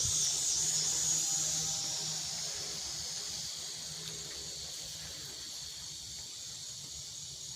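Insect chorus in the woods: a steady, high-pitched buzzing drone that slowly fades.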